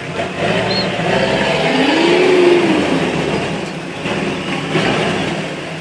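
Off-road 4x4's engine revving hard under load as it climbs a steep dirt hill, its pitch rising and then falling about two seconds in.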